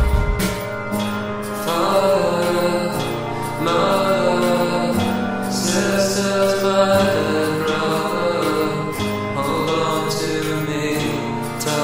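Music without sung words: slow, sustained chords over a bass line that steps to a new note every couple of seconds.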